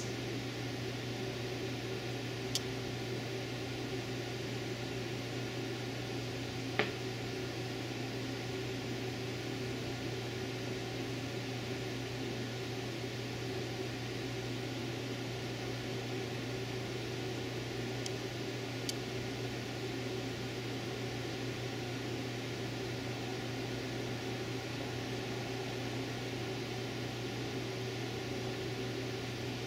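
Steady room tone: a low hum with an even hiss over it, broken only by a few faint brief ticks, the clearest about seven seconds in.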